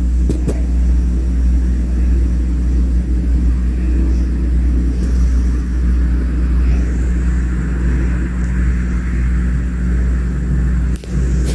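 A steady low rumble with a hum, like a running engine. It dips briefly near the end.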